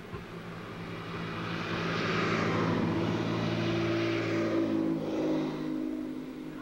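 A motor vehicle passing by: its engine and road noise swell over about two seconds, hold, then fade away near the end. A basketball bounces once on the pavement just at the start.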